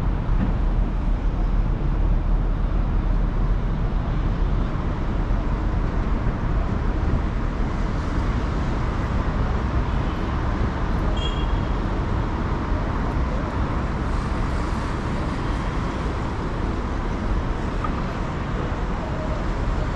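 Steady city street traffic noise, a continuous rumble of passing vehicles.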